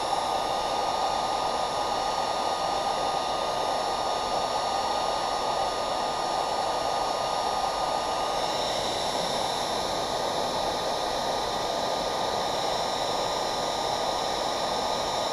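Variable-temperature heat gun running steadily: an even blowing hiss of hot air with a faint steady whine, as it softens an HDPE plastic welding rod for a weld.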